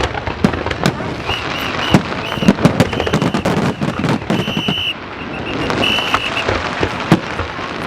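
Fireworks display going off: a dense run of bangs and crackling, with short high whistling tones through the middle.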